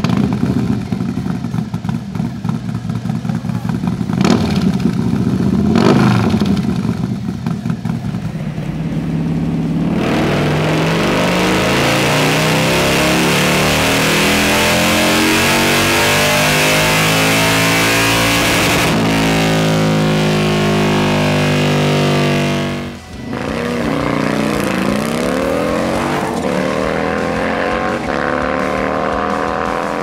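Harley-Davidson Milwaukee-Eight 117 V-twin, built to Stage II with a torque cam, revved sharply twice and then pulled hard in a long run, its pitch climbing over a loud rushing hiss. The run cuts off a little past the middle, and after a short drop-out the engine climbs again.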